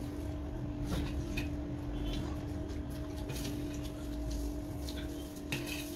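Eating sounds: a spoon clicking and scraping on a steel plate and chewing of chatpate, in scattered irregular clicks over a steady low hum.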